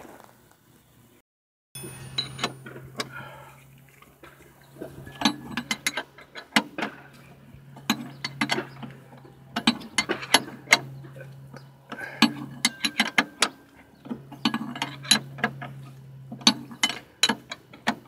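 Hand ratchet wrench clicking in quick runs, with metal tool clinks, as nuts are tightened on a new lower ball joint. A steady low hum sits underneath.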